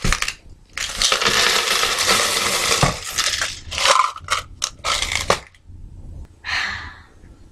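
Coins poured and shaken out of a metal can: a dense rattle of coins for about two seconds, then several short separate clatters and one more near the end.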